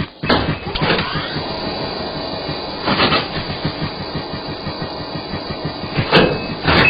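Cartoon treadmill running at high speed: a fast, even clatter of the belt and pounding feet that starts suddenly just after the beginning, with sharper knocks about three seconds in and twice near the end.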